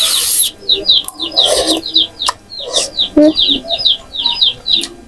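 Noodles being slurped, a loud hissing suck in the first half second and a shorter one about a second and a half in, with a few light clicks of cutlery. Birds chirping rapidly and continuously in the background.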